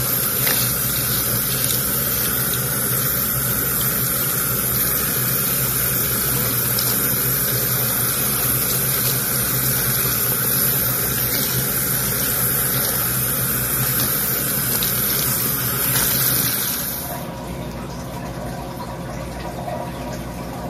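Tap water running in a steady stream onto wet hair and into a stainless steel sink while fingers scrub the hair. The flow stops about seventeen seconds in, leaving a quieter steady noise.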